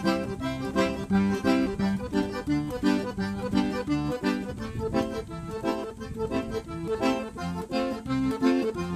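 Background music led by an accordion, playing a tune with a steady rhythm.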